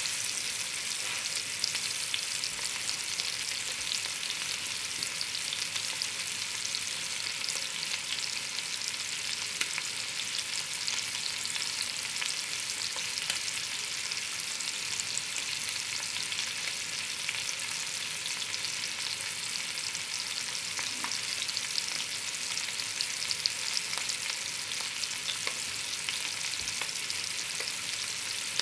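Beef short ribs searing in hot fat in a cast-iron Dutch oven: a steady sizzle dotted with small crackling spatters.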